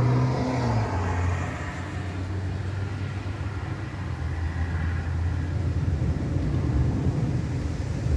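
A motor vehicle's steady low engine drone, with a wider swell of road noise that is loudest at the start and eases about a second in.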